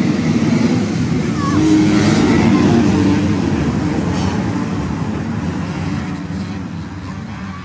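A pack of motocross bikes racing off the start at full throttle, a dense mass of engine noise that fades gradually over the last few seconds.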